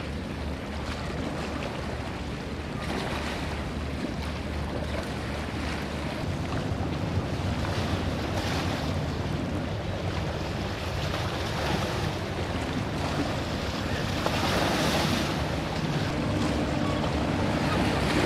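Water washing and splashing around a boat, in uneven surges that swell louder twice, with wind buffeting the microphone over a low, steady engine hum.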